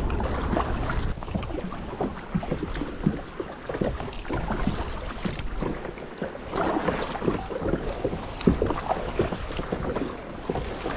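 Sea water splashing and lapping irregularly around a sit-on-top kayak's hull, with wind rumbling on the microphone, heaviest in the first second.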